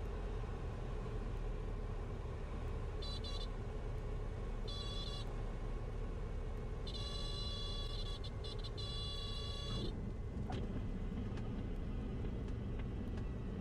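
Grumman AA5 light aircraft's engine and wind noise through the landing flare. Its stall warning horn sounds in two short beeps and then longer blasts as the wing nears the stall just before touchdown. A knock follows about ten seconds in as the wheels touch down, and the wheels then rumble on the runway.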